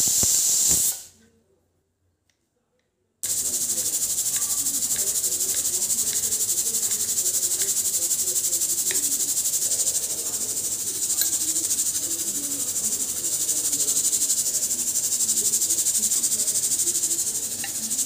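A knife chopping on a wooden cutting board for about a second over a steady high hiss, then cut to about two seconds of silence. After that comes a steady high hiss with faint soft music underneath.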